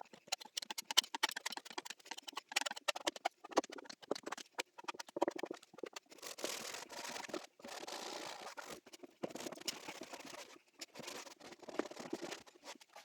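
Irregular scratching, clicking and rubbing of hand work on a plywood piece, with a few longer stretches of rubbing near the middle.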